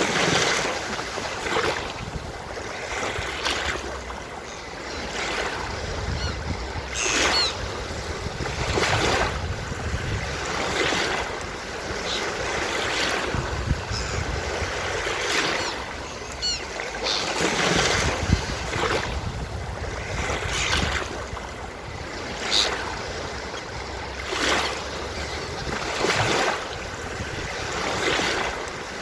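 Ocean surf washing onto a beach in repeated surges every couple of seconds, with a few brief, faint high seagull calls now and then.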